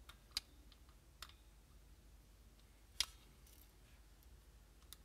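A few small, sharp clicks and taps as a paintball marker's circuit board assembly is handled and seated into its trigger frame. The loudest click comes about three seconds in.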